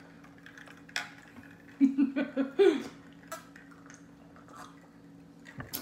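People gulping soda from plastic cups: a quick run of loud swallows about two seconds in, with a light click or two, over a steady low hum.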